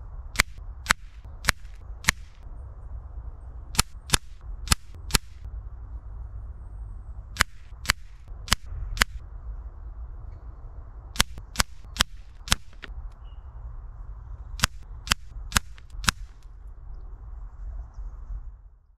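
FX Impact M3 air rifle being fired at a paper target: twenty sharp cracks in five quick groups of four, about half a second apart within each group, over a steady low rumble.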